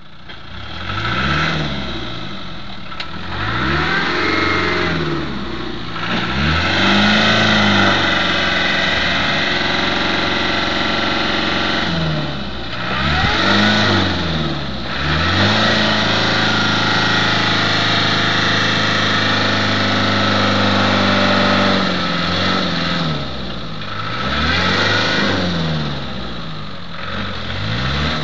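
Land Rover engine revved hard again and again, rising and falling in pitch, held at high revs for several seconds in the middle: a driver trying to power the vehicle out of deep mud where it is stuck.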